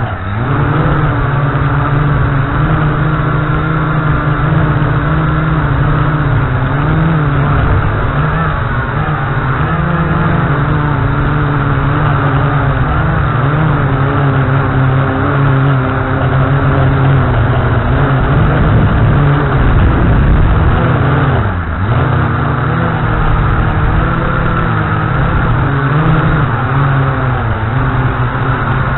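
Brushed-motor quadcopter (WLtoys Q393-A) motors and propellers whining in flight, the pitch constantly wavering as the throttle works against gusts. About three-quarters of the way through, the pitch dips sharply and recovers. Wind rumbles on the microphone underneath.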